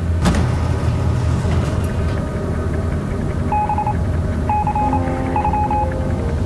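Designed sound effects for an on-screen computer display: a steady low rumble, with a sharp click near the start and three short runs of quick electronic beeps about a second apart in the second half, like status beeps.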